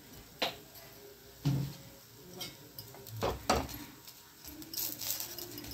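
A spatula knocking and scraping against a kadai while turning a paratha: several short sharp knocks at irregular intervals.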